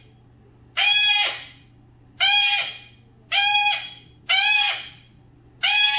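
Ringneck parakeet repeating the same short, loud, harsh call five times, about once a second, each call sounding the same as the last, like a shouted 'No!'.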